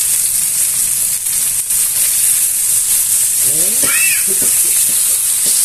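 Lamb ribs frying in an electric skillet, a steady even sizzle as the meat sears on its first side before being flipped.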